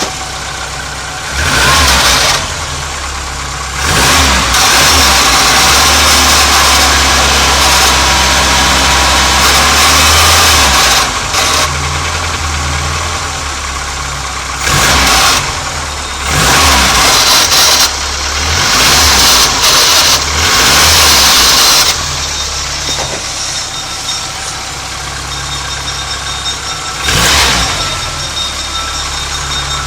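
1989 Nissan Sunny's engine idling with a noise from the gearbox. The noise comes and goes in loud stretches of one to several seconds, with quieter plain idle between. The owner says the noise stops when the clutch is pressed and is heard only while the engine is cold.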